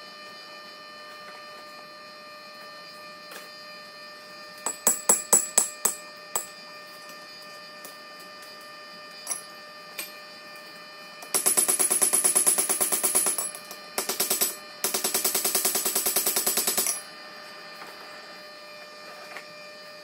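About seven quick hammer blows ringing on a steel anvil, then a mechanical power hammer running in two bursts of rapid, even blows, each about two seconds long, over a steady hum.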